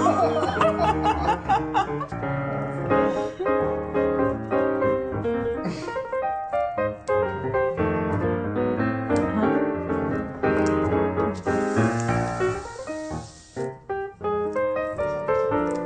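Background piano music with quick, busy notes, with a short burst of hiss about twelve seconds in.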